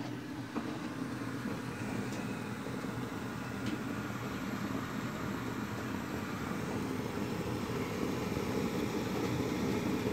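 Steady rushing rumble from a model boat's live steam plant, growing slightly louder over the last few seconds.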